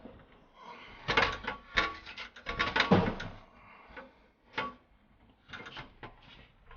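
Irregular knocks, clatter and scraping of hands and tools working on the cooler's wiring and fittings. The sounds are busiest about one to three seconds in, with a sharp knock midway and a few more near the end.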